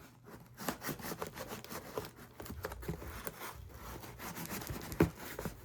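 A knife sawing and scraping at a cardboard shipping package's tape in a run of short, uneven rubbing strokes, with one sharp knock about five seconds in.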